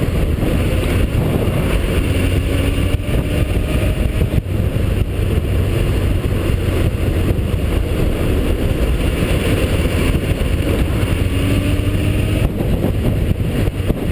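Motorcycle being ridden on the road: a steady, loud rush of wind and road noise with the engine running underneath, its note faintly gliding up and down a few times.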